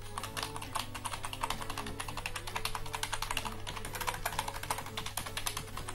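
Keys of a Logitech K120 membrane keyboard being pressed in a quick, continuous run right at the microphone: a dense patter of key clicks.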